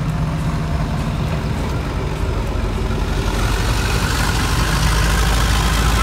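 Diesel train running by: a low engine rumble with wheel and rail noise, growing steadily louder over the last few seconds.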